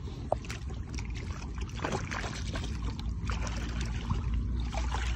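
Feet wading through shallow water among rocks: water sloshing and splashing at the steps, with a few sharp knocks, over a steady low rumble.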